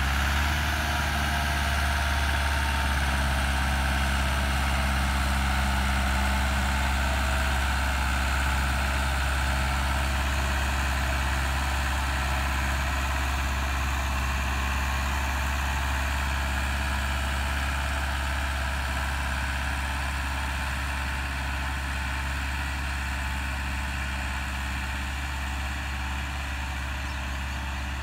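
Massey Ferguson 375 tractor's diesel engine running steadily under load while pulling a disc harrow, a constant low drone that slowly fades as the tractor draws away.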